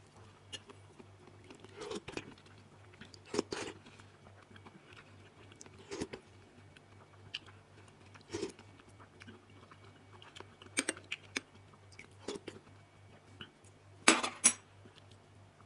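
Someone eating soup from a bowl with a metal spoon: scattered spoon clinks against the bowl and chewing every second or two, with two sharper clinks near the end. A faint steady low hum runs underneath.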